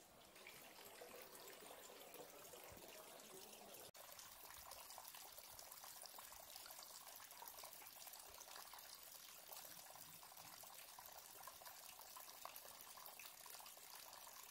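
Water from a stone village fountain trickling steadily into its stone basin, faint. It sets in after an abrupt break about four seconds in.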